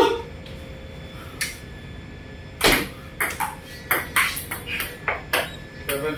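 Table tennis rally: a ping-pong ball clicking sharply off the paddles and bouncing on the table. One loud click at the start, then from a little before halfway a quick run of hits, each a third to half a second apart, until the point ends near the end.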